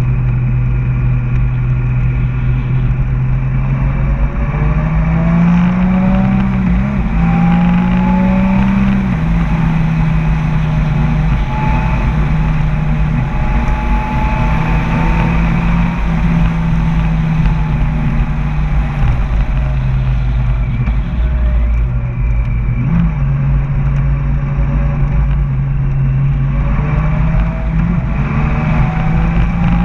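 Motorcycle engine running at road speed under steady throttle, with wind rushing over the microphone. Its pitch climbs as it speeds up about five seconds in, then drops back and holds, shifting a little up and down later on.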